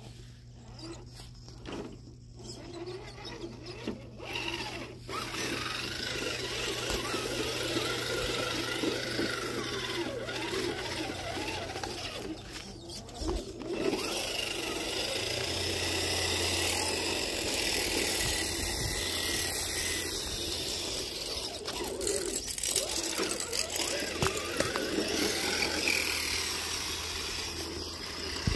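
Electric motor and gears of a low-geared radio-controlled truck whining as it drives over rocks and grass, getting louder about four to five seconds in.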